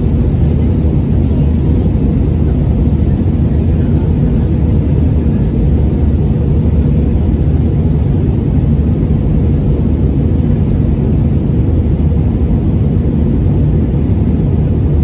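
Steady low rumble of an Airbus A319's engines and rushing airflow, heard inside the passenger cabin in flight.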